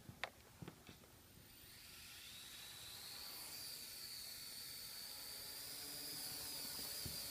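Blade 180 QX micro quadcopter's motors spinning up on the floor: a high, buzzing whine that slowly grows louder and edges up in pitch. A few sharp clicks come in the first second.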